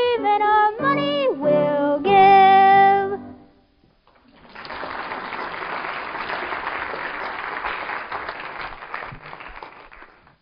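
A girl's solo singing voice, accompanied by piano, ends on a long held final note; after a brief pause an audience claps for about six seconds, fading out near the end.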